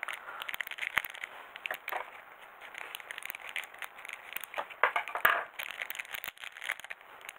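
Small clear plastic parts bag crinkling and crackling in the hands as it is handled and cut open with scissors, with the loudest crackles about five seconds in.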